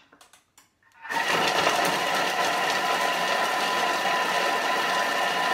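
Thermomix TM6 blades spinning at speed 5 for a five-second chop of onion into a breadcrumb mixture: a steady motor whine that starts about a second in and holds at an even level.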